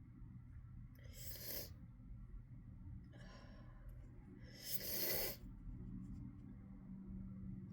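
A run of sneezes during a sneezing fit: three short, hissy bursts about a second, three and five seconds in, the last the loudest.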